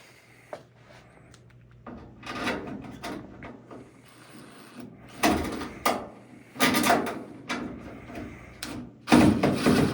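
A dryer's sheet-metal panel being handled and Phillips-head screws being driven into it: irregular scraping, rubbing and clicking in several short bursts, the loudest near the end.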